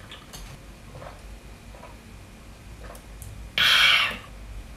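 Faint clicks and scrapes of oyster shells being handled. About three and a half seconds in comes a short, loud, breathy hiss lasting about half a second.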